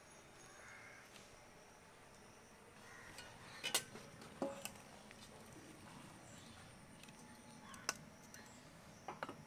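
A few sharp metal clinks and knocks of a utensil against the cooking pot, spaced a few seconds apart, one ringing briefly, over a faint steady background.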